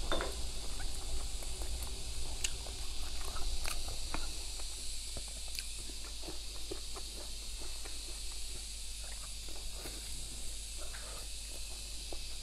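Close-up chewing and lip smacking on fatty braised pork: a run of small, soft wet clicks and smacks at an irregular pace over a steady faint hiss.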